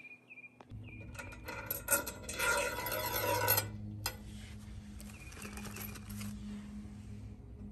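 Long steel threaded rod being pushed through a drilled hole in a wooden post, its threads scraping and rattling, loudest from about two to three and a half seconds in and quieter afterwards. A low steady hum runs underneath.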